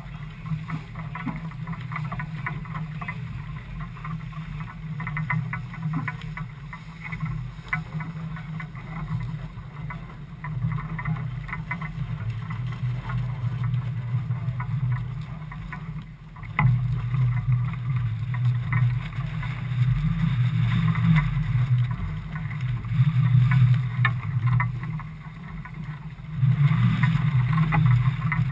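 Wind buffeting the microphone aboard a boat, a gusting low rumble with crackly noise above it. The gusts grow louder about halfway through and again near the end.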